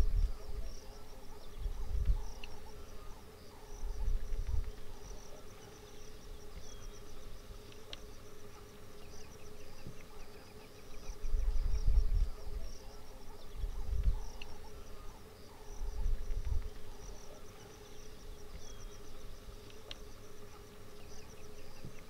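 Outdoor insect chorus: rapid, high-pitched pulsing chirps over a steady lower hum. Low rumbles come and go every few seconds and are the loudest sounds.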